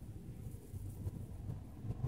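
Quiet outdoor background with a faint, low rumble.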